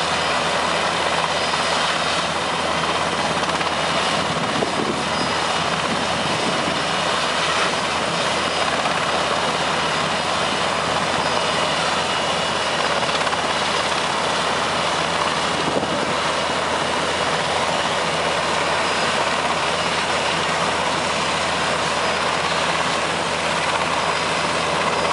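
Super Puma helicopter running on the ground with its main rotor turning: a steady, even turbine and rotor noise.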